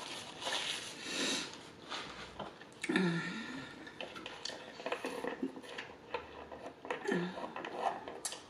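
A paper napkin rubbing against the mouth, then a drink sipped through a straw from a large fast-food cup, with scattered small rustles and clicks and two short low sounds about three and seven seconds in.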